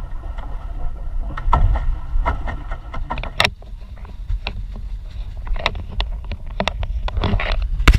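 Water splashing and lapping at the side of a plastic pedal boat, close to the surface, over a steady low rumble, with many sharp knocks and splashes.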